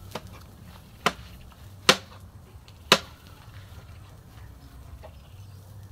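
Kitchen knife chopping tomatoes on a cutting board: three sharp knocks of the blade hitting the board about a second apart, with a couple of fainter taps.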